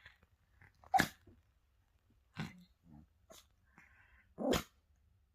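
A small spitz dog making four short, sharp sounds about a second apart, the loudest about a second in.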